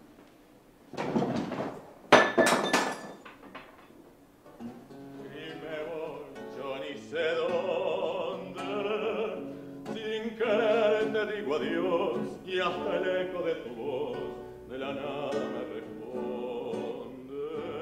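A male tango singer sings with an acoustic guitar accompaniment, starting about four to five seconds in. Before the song begins there are two loud, sudden clattering sounds, about one and two seconds in.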